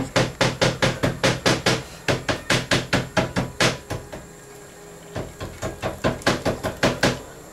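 Rapid, even knocking: sharp strikes about three or four a second, in two runs broken by a pause of about a second near the middle.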